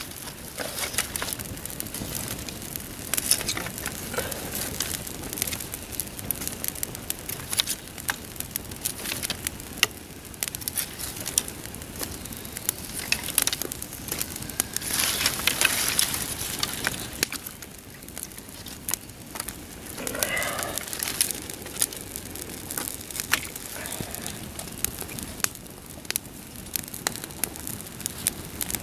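A freshly lit campfire of dry twigs and grass tinder burning with frequent sharp crackles and pops. Around the middle, split kindling is laid on with a rustling, snapping stretch.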